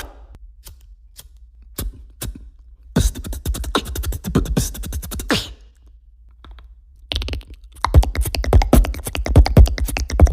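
Mouth-made beatbox sound effect: a few scattered clicks, then two runs of rapid clicking a couple of seconds each, with a short pause between them.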